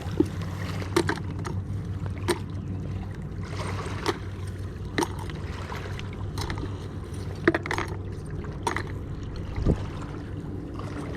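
Irregular sharp clicks and knocks, roughly one a second, over a steady low hum and a noisy wash of water.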